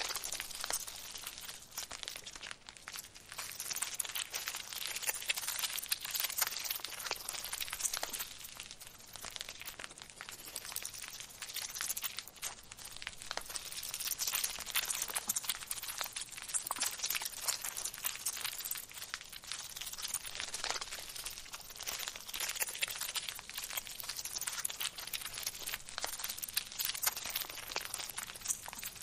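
Crawling-insect sound effect: a dense, continuous crackling and scratching that swells and eases in waves.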